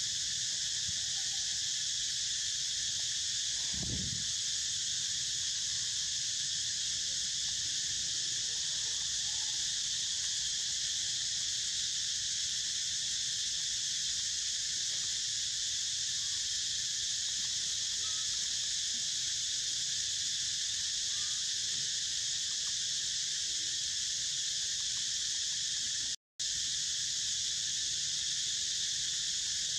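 Dense chorus of insects, a steady high buzz in several layers. A brief low thump comes about four seconds in, and the sound cuts out for a moment near the end.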